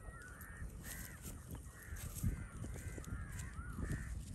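Birds calling in a quick series of short calls that rise and fall in pitch, two or three a second.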